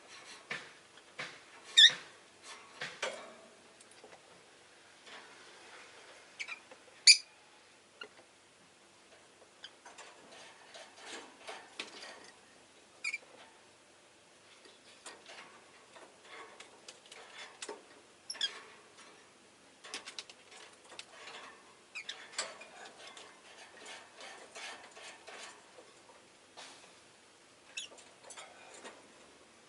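Rosy-faced lovebirds giving short, sharp chirps now and then, the loudest about two seconds and seven seconds in. Between the chirps, many soft clicks and scratches.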